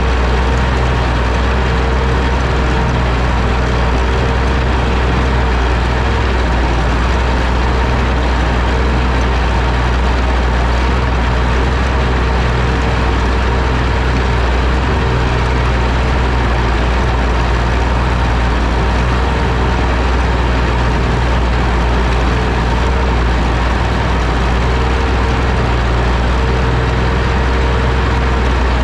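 Oliver OC-6 crawler tractor's engine running steadily at a constant speed, a loud even drone with a strong low hum.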